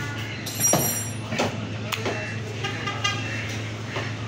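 A short vehicle horn toot about half a second in over a steady low hum, with a few sharp knocks.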